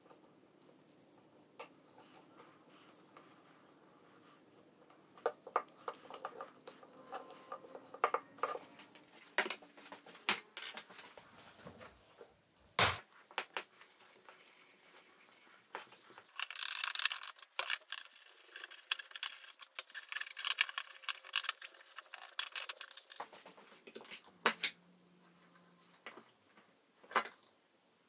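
Scattered taps, clicks and rubbing from hand work on small wooden lamp pieces, with a denser stretch of rubbing or scraping a little past the middle.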